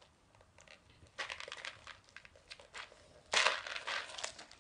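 Candy packaging handled and opened by hand: quiet at first, then a quick run of short crackles and crinkles from about a second in, with a louder burst about three seconds in.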